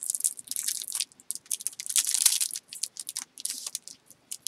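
Packaging crinkling and rustling in short, irregular crackles as small items are unwrapped and handled by hand. The crackles thin out near the end.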